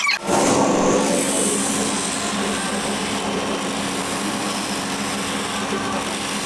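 Belt-driven polishing wheel and its electric motor running steadily, with a knife handle held against the spinning wheel. It comes in sharply just after the start, loudest in the first second, then settles to a steady hum with a rushing grind.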